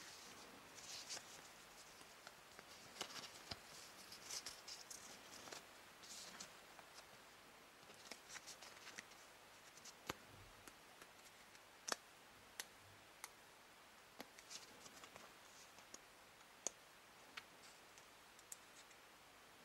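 Faint handling of small Kinder Surprise toy parts: soft rustling for the first few seconds, then scattered small sharp clicks as the plastic pieces are fitted together.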